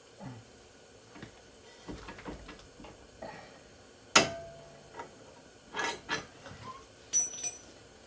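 Scattered metal clicks and clanks of hand tools and loose suspension parts as parts are worked free from a car's front steering knuckle. The loudest is a single ringing clank about four seconds in, with a few more knocks after it.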